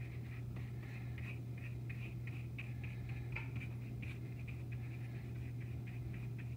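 Paintbrush stroking and dabbing red paint onto a canvas, soft irregular scratchy strokes over a steady low hum.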